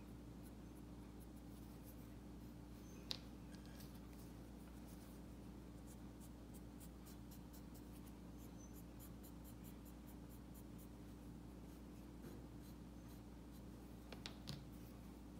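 Faint scratching and light taps of a cotton-tipped tool working oil paint on a glazed porcelain tile, with a sharper click about three seconds in and a few more near the end, over a steady low hum.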